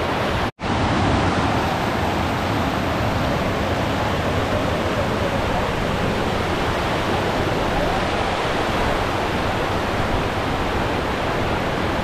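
Kilkila Falls in heavy flow: river water rushing and churning over rock ledges in a loud, steady rush. It cuts out for an instant about half a second in.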